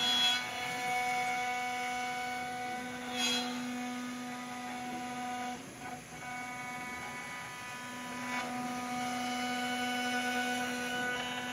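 PwnCNC 2.2 kW spindle on a CNC router whining steadily as its bit cuts a groove in a wooden board. Short rushes of cutting noise come just after the start, about three seconds in and about eight seconds in.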